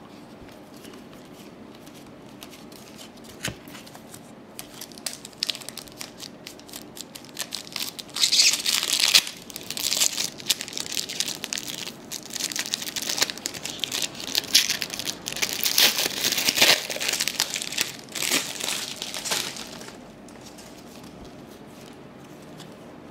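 Foil wrapper of a 1996-97 Topps basketball card pack being torn open and crinkled by hand: a few light crackles at first, then dense crinkling and tearing from about eight seconds in until about twenty seconds in.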